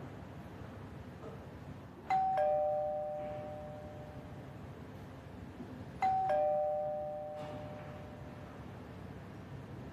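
Two-tone doorbell chime rung twice, about four seconds apart: each ring is a higher note followed at once by a lower one, a ding-dong that rings on and fades over a couple of seconds.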